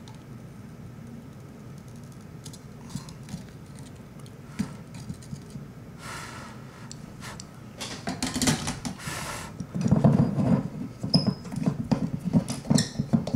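Light clicks, taps and rustling from a soldering iron, cable and XLR connector being handled on a workbench. The handling grows busier and louder in the last few seconds.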